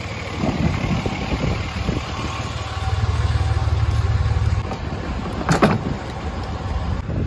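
A motor vehicle engine running with a steady low rumble, and a single sharp knock about five and a half seconds in.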